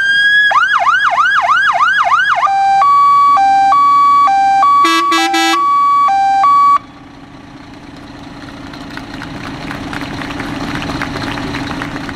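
A new Scania P400 fire engine's electronic siren runs through its tones: a rising wail, then a fast yelp, then a high-low two-tone with a brief rapid warble. It cuts off suddenly about seven seconds in, leaving a low steady hum.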